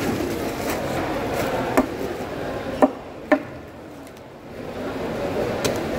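Heavy knife chopping through rohu fish steaks on a wooden chopping block: several sharp, separate chops over a steady background murmur that dips briefly in the middle.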